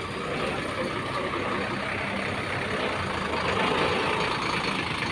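Bus engine running steadily: a low hum under an even wash of noise.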